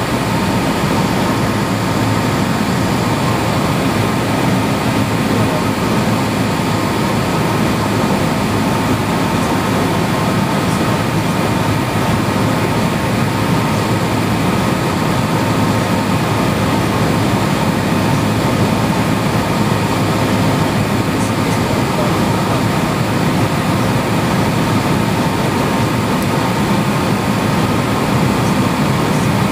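Cessna single-engine light aircraft in level flight: a steady, loud drone of the piston engine, propeller and airflow, unchanging throughout.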